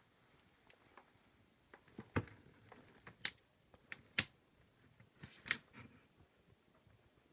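A handful of sharp, separate clicks and knocks, irregularly spaced, the loudest about two, three, four and five and a half seconds in, over faint room tone.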